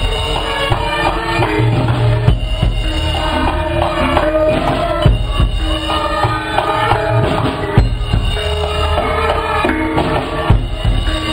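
Javanese gamelan playing a piece for the shadow-puppet play: the bonang's kettle gongs ring out struck notes in a steady rhythm over drumming, with a drum kit's bass drum and cymbal mixed into the ensemble.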